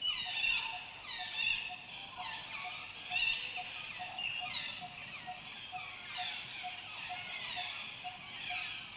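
Cockatoos calling: many short, overlapping falling chirps and squawks, with a faint even pulse underneath about three times a second.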